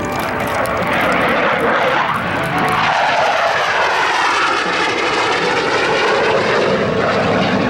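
CF-18 Hornet fighter jet with its twin General Electric F404 turbofans flying past in a low pass: a loud, steady jet roar that swells about a second in, with bands sliding in pitch as it goes by.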